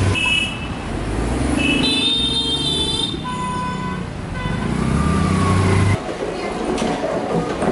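Busy road traffic with car horns honking about two seconds in and a heavy vehicle engine running close by; the traffic sound drops off abruptly about six seconds in.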